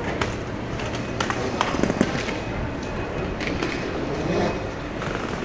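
Outdoor bustle of people walking down steps with luggage: a steady rush of background noise with scattered knocks and clicks, most of them in the first two seconds.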